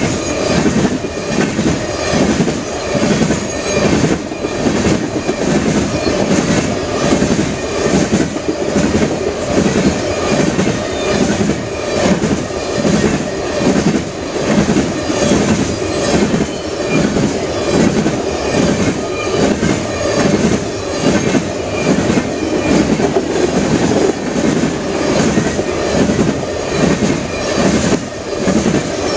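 A train of crude-oil tank cars rolling past close by: a steady rumble of steel wheels on rail, with the wheel sets clicking over rail joints in an even, repeating rhythm.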